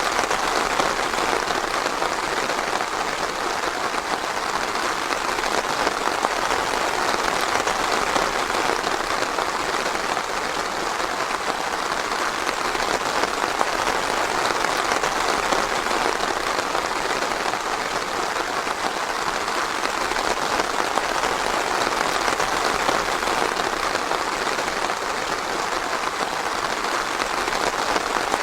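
Steady, dense rainfall, an even hiss of many drops, with no thunder.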